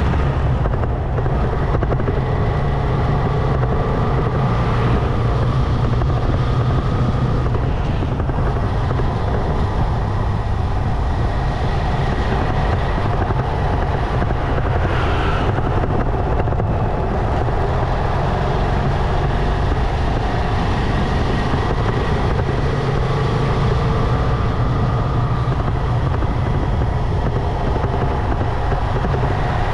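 Motorcycle riding through town traffic: a steady low rumble of engine and road noise, with other traffic faintly audible.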